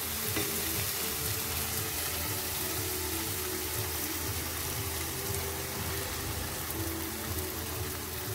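Steady sizzle of onion-tomato masala frying in a hot pan while thick fresh cream is poured in over it.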